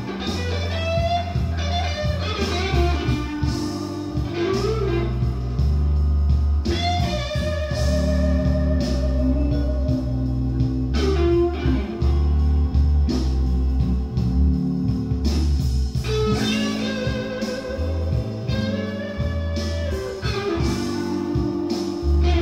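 Blues recording played back on a stereo system: a lead electric guitar plays bent, wavering notes with vibrato over a heavy bass line.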